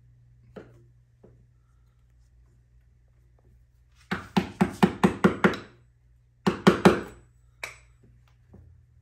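Hammer tapping a wall anchor into a hole drilled in a concrete wall: a quick run of about eight sharp knocks, a short pause, then four more and a last single knock.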